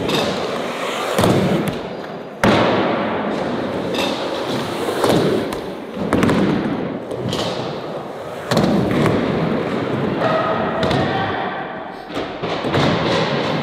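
Skateboards on hard ground: wheels rolling, with a string of sharp thuds and clacks every second or two from boards popping, landing and slapping down on bailed attempts.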